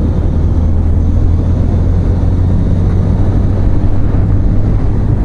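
Honda Grom's small single-cylinder engine running at a steady cruise, mixed with heavy wind rush on the microphone.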